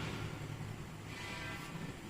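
Faint background music with a sustained low note, and a brief held chord about a second in.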